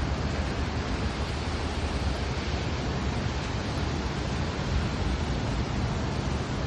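Heavy rain pouring steadily onto a paved parking lot: a dense, even hiss with a low rumble underneath.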